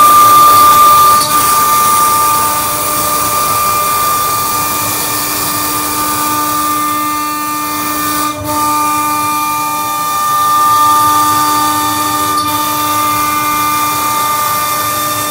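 Omni 1325 CNC mill's spindle and end mill cutting acrylic: a steady high whine over a hiss. It is the quieter sound of the bit making contact only with the acrylic, not with the spoil board beneath.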